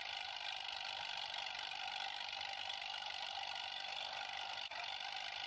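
Steady, even running noise of a heavy construction vehicle, with a brief dip about four and a half seconds in.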